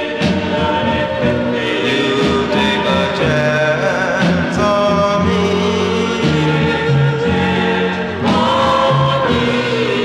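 A 45 rpm vinyl single playing: a vocal group singing in harmony over a band backing.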